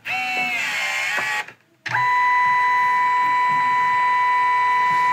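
Kodak Instant Dock dye-sublimation photo printer running its paper-feed motor during the yellow colour pass. A whine that wavers in pitch for about a second and a half breaks off briefly, then settles into a steady high-pitched whine.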